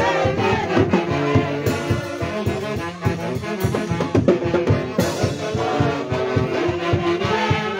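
Brass band playing a huayno, horns holding notes over a steady drumbeat.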